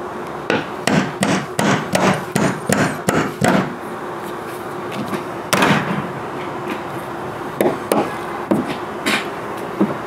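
Claw hammer striking the wooden mounting board of a set of bull horns, driving a tight bolt home to seat it. A quick run of about nine blows, some three a second, then a few single, spaced-out blows, the loudest about halfway through.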